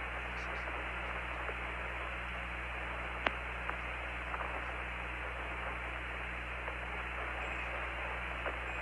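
Open Apollo 15 air-to-ground radio channel with no voice on it: a steady hiss over a low hum, with a single brief click about three seconds in.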